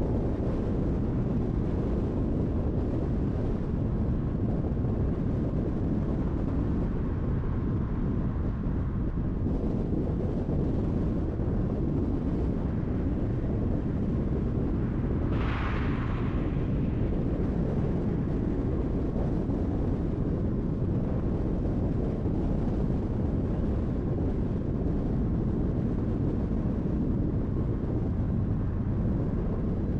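Steady low rumble of a car's road and tyre noise while cruising on a highway. A brief hiss, falling in pitch, passes about halfway through.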